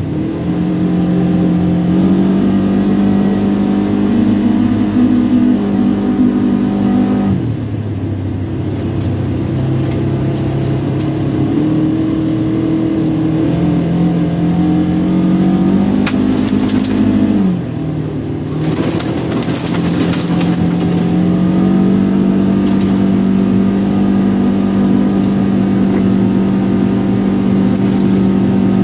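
Polaris RZR 900 side-by-side's twin-cylinder engine running steadily under throttle while driving. Its pitch falls off sharply twice, about a quarter of the way in and just past halfway, as the throttle is eased, then climbs back. A few sharp knocks around the second drop and near the end.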